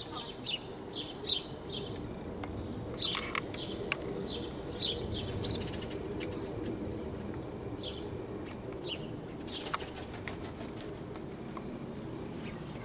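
Small songbirds chirping: short, high, falling chirps, several a second in the first few seconds and sparser later. A few sharp clicks stand out about three, four and ten seconds in, over a steady low outdoor rumble.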